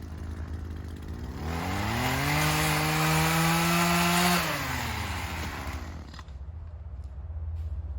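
Small Echo two-stroke saw engine revving up from idle, held at high speed for about two seconds, then dropping back to idle.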